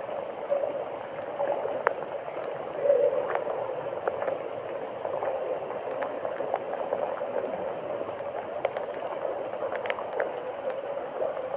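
Floodwater flowing and gurgling steadily, with scattered small clicks.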